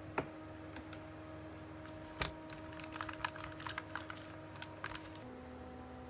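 Scattered light clicks and taps, irregular like keys or small buttons being pressed, over a steady background of held tones that shift to a lower set about five seconds in.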